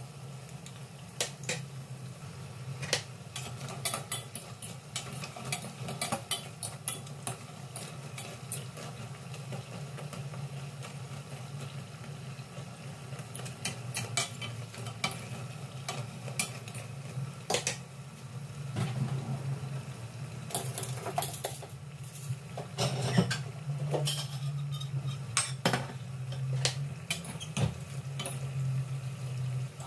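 Banana turon sizzling as they deep-fry in oil in a stainless steel saucepan, with a metal fork clinking and scraping against the pan many times as the rolls are turned. A low steady hum runs underneath.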